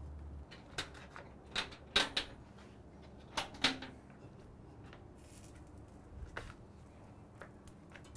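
Sharp metal clicks and knocks from a Badger Barrel drum smoker as its lid is handled and lifted off: about six in the first four seconds, then a few fainter ones.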